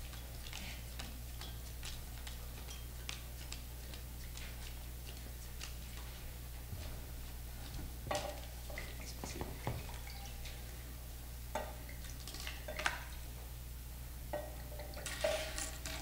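Light taps of playing cards on a small table, then wine poured from a bottle into glasses in three short pours in the second half.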